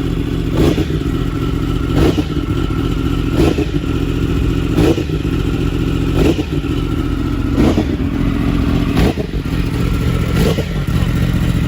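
Yamaha R1M's crossplane inline-four running steadily through a full Akrapovic exhaust, with a short sharp burst about every second and a half.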